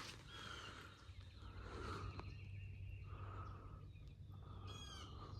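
Faint outdoor background with birds calling, ending in a quick run of chirps about five seconds in.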